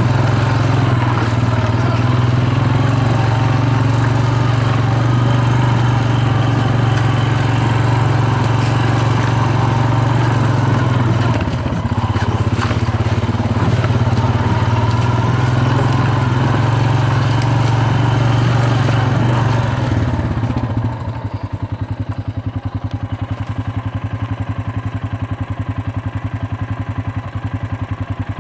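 ATV engine running steadily under way, with rattle and tyre noise, then dropping to a steady idle about three-quarters of the way through as the machine stops.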